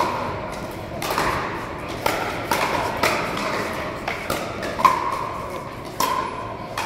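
Pickleball paddles striking a hard plastic ball during a rally: sharp hollow pops at irregular intervals, roughly one a second, each ringing briefly in a large hall. The loudest pop comes about five seconds in.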